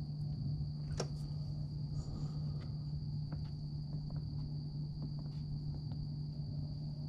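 Crickets and other night insects trilling steadily in one high, even tone, over a low steady hum, with a few faint clicks, one a little louder about a second in.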